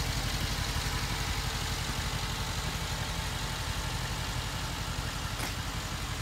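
Mercedes-Benz G550's V8 engine idling steadily with a low, even pulse. A faint click comes near the end.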